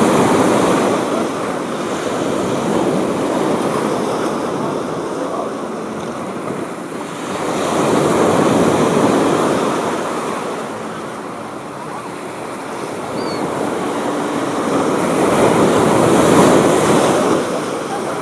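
Ocean surf breaking and washing up the shore, a steady wash that swells and fades with each wave, loudest about every eight seconds.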